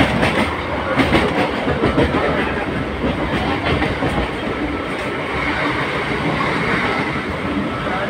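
Train running at speed, heard from inside the coach: steady rumble and rattle of the moving carriage, with quick clattering of the wheels over rail joints in the first few seconds.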